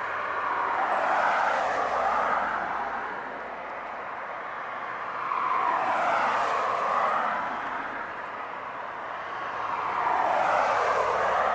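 Three cars passing one after another. Each is a swell of road noise that rises and fades over two or three seconds.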